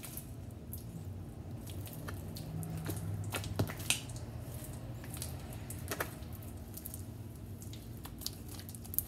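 Hands kneading and stretching homemade glue slime, with soft squishing and scattered sticky clicks and pops. The slime is sticky and tough.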